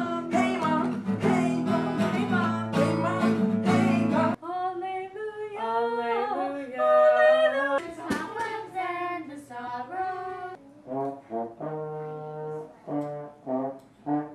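Acoustic guitar strummed with a woman singing along; after a cut about four seconds in, a girl sings alone, holding and bending notes. Near the end a trombone plays a few short, separate low notes.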